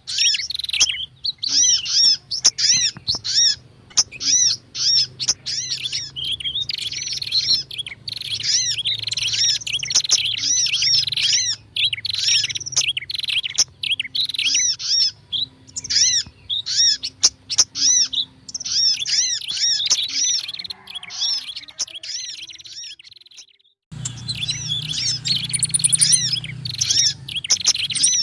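Bird-lure recording of prinia and sunbird calls layered together: dense, fast, high-pitched chirping and twittering. It breaks off briefly near the end, then starts again.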